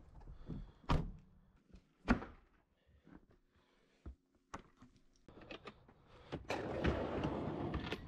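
Vehicle doors shutting: two solid thunks about a second apart, then scattered small clicks and knocks and a few seconds of rustling as gear is handled.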